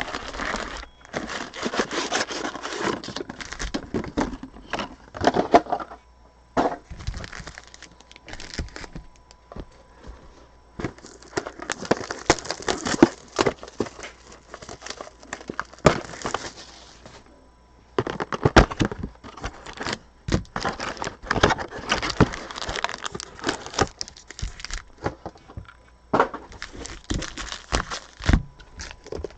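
Plastic packaging crinkling and tearing, with irregular clicks and rustles, as trading-card boxes and packs are unwrapped and handled.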